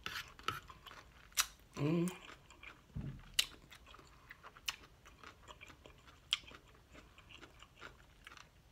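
A mouthful of lettuce salad with dressing being chewed with the lips closed, close to the microphone: scattered wet mouth clicks and smacks. A short hummed "mm" comes about two seconds in.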